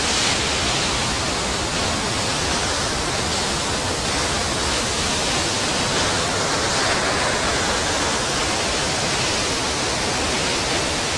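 A big waterfall's water gushing under high pressure, splitting around a large rock: a steady, unbroken rush.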